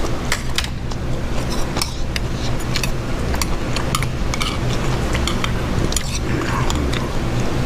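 Metal spoon and chopsticks clinking against a small stainless-steel bowl while eating: many light, irregular clinks over a steady low rumble.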